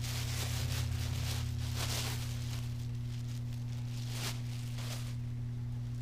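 Soft rustling and handling noises over a steady low hum.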